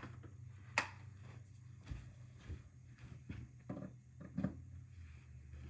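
A few faint knocks and clicks of something being handled, the sharpest about a second in, over a low steady hum.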